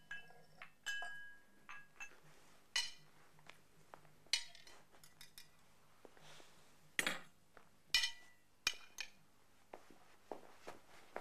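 Glasses and dishes clinking and knocking together at irregular moments, some strikes ringing briefly, the loudest about 7 and 8 seconds in: foley artists recording a glass ambience.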